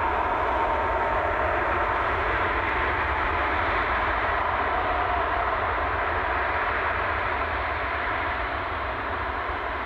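Airbus A380 jet engines running: a steady rushing noise with a deep rumble beneath and a faint whine at first, easing slightly near the end.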